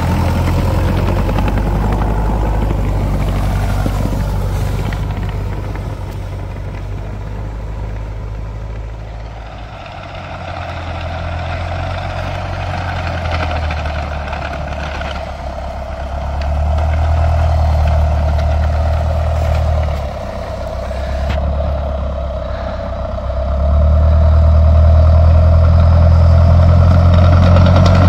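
Tucker Sno-Cat tracked snow vehicle driving through snow, its engine running with a steady low hum that fades somewhat in the middle and is loudest near the end as the machine comes close.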